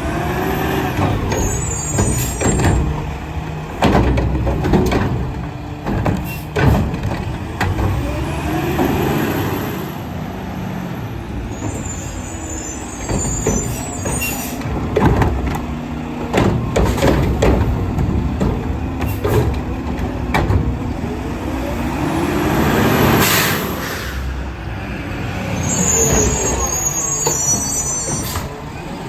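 Mack LR garbage truck with a McNeilus Meridian front-loader body working its route: the engine revs up and falls back several times, with repeated bangs and clatter from the cans and trash and short hisses of air.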